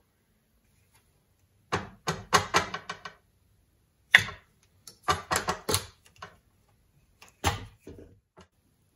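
Hard plastic parts clicking and rattling in a few short spells as the antenna's black plastic connector housing and its round lid are handled.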